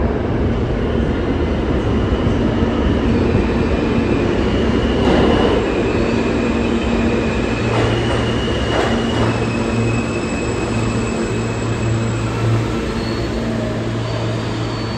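R160A subway train pulling into the station and slowing to a stop: a steady rumble of steel wheels on the rails under a steady motor tone. Thin, high-pitched squeals come and go through most of the arrival, with a few clicks of wheels over the track in the middle.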